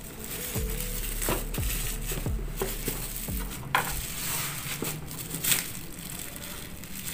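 Black plastic wrapping on a parcel crinkling and crackling as hands handle and turn it over, with scattered sharp crackles. Near the end, scissors start cutting into the plastic.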